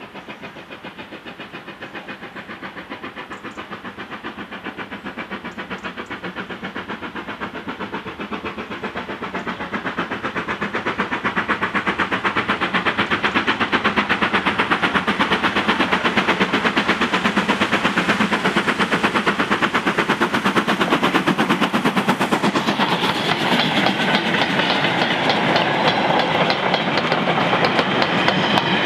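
GWR 5101-class 2-6-2 prairie tank No. 5199 steaming up the line with a short goods train, its exhaust beats rapid and even, getting louder as it approaches. Near the end the engine passes and the wagons rattle by on the rails.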